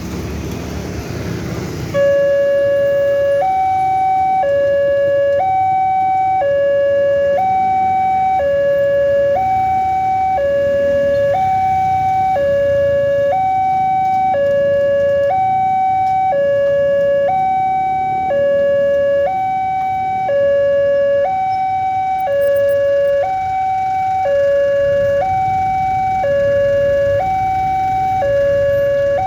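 Railway level crossing warning siren starting about two seconds in and sounding a steady hi-lo alternation, a lower and a higher note each held about a second. This is the alarm that a commuter train is approaching the crossing.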